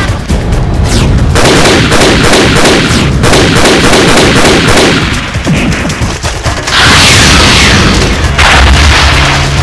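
Loud instrumental music with fast, dense drumming over a steady low drone.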